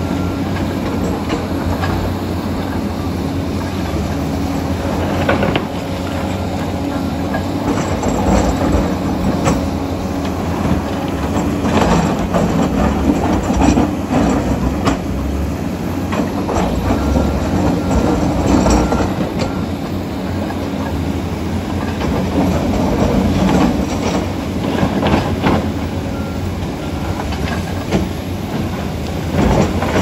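Heavy tracked earthmoving machinery at work: a Komatsu D85EX bulldozer's diesel engine runs steadily under load as it pushes rock and dirt, its steel tracks clanking and squealing, alongside a tracked excavator's diesel. Irregular sharp clanks and knocks of steel track and rock come throughout over the steady engine drone.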